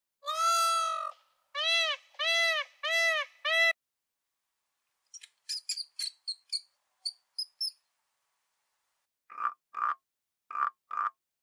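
A peacock calling: one long call, then three shorter ones in quick succession. Then a run of short, high squeaks from a small rodent. Near the end, a frog croaks in short pairs.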